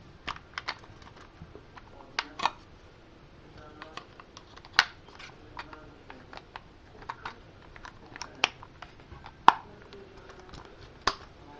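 Irregular plastic clicks and taps from a Microsoft Arc Keyboard being handled, with a few sharper clacks among them.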